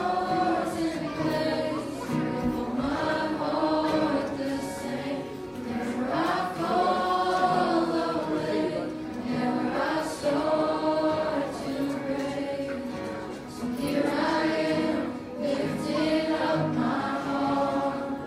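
Church singers in a group, singing a gospel song in long, drawn-out phrases.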